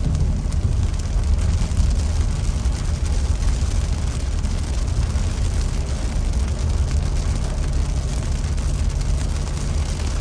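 Inside a car driving in heavy rain: a steady low rumble of tyres and road on the wet pavement, with the hiss of rain hitting the windshield and body. A faint low hum joins about seven seconds in.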